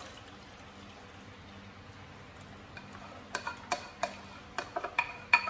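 Faint steady hiss while thick puree is poured into a pot. Then, from about halfway in, a quick run of sharp clinks and knocks as a spoon and the ceramic bowl strike the metal pot, the loudest near the end.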